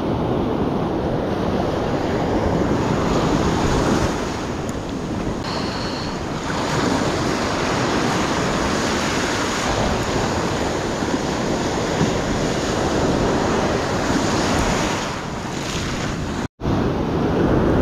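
Surf breaking on a beach, with wind buffeting the microphone. The sound cuts out for an instant near the end.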